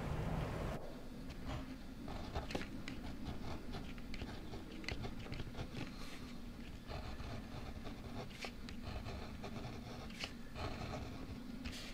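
A brief rushing noise that stops sharply, then scattered small clicks and light scraping over a low steady hum.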